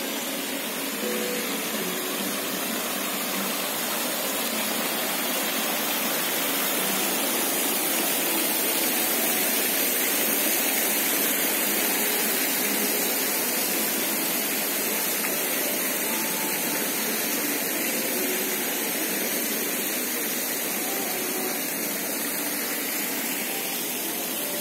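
Steady rushing noise of running water, slightly louder in the middle, with a few faint distant voices.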